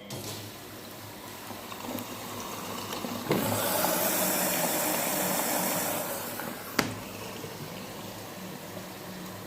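Miele W833 washing machine taking in water: a steady rushing of inflowing water over a low hum. The flow grows suddenly louder about three seconds in, then drops back after a sharp click near the end.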